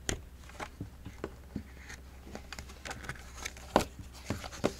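Paper picture book being handled and opened, its thin cover and pages flexing and turning under the fingers, making scattered small clicks, taps and rustles. The sharpest tap comes a little before the end.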